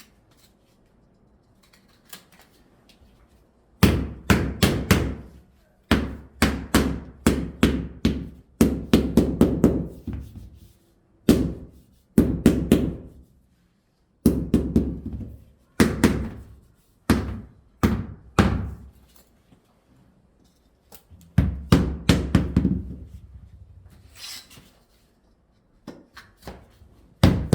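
Hammer blows knocking wooden floor planks into place while a floor is re-laid. The blows come in quick runs of several strikes, with short pauses between the runs.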